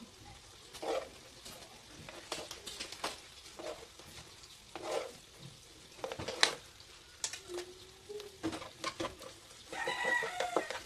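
Chicken pieces and onions frying in oil in a pan, with a metal spoon and then a spatula scraping and knocking against the pan as they are stirred. A short pitched call with several tones sounds near the end.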